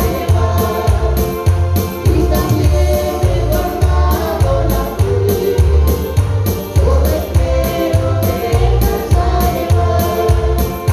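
Christian praise music with singing over a steady, regular bass-and-drum beat.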